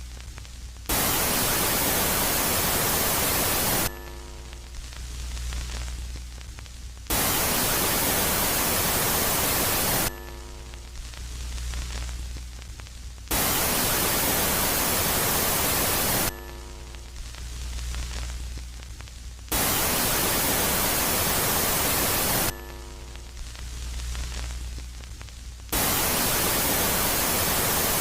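Electronic static hiss presented as the sound of Jupiter's moon Megaclite, switching about every three seconds between a loud, full hiss and a quieter phase of low hum with a softer hiss that swells and fades. The loud hiss comes four times, and a fifth loud phase starts near the end.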